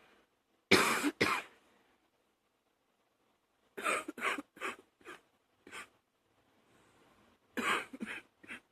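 A woman's morning cough, coming in fits: a double cough about a second in, a run of about five coughs around four to six seconds in, then a breath and three or four more coughs near the end.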